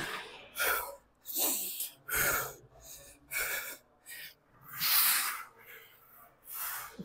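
A man breathing hard in short, forceful breaths out, about one a second, with the rhythm of the reps as he pulls a barbell through a set of rows.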